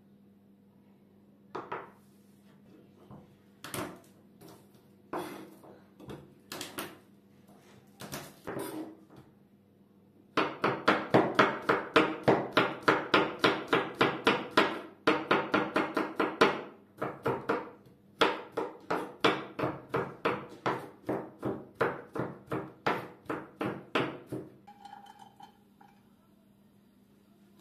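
Knife chopping garlic cloves on a wooden cutting board: a few separate knocks at first, then about ten seconds in a steady run of rapid chopping strokes, some three to four a second, with a short pause partway, stopping a few seconds before the end.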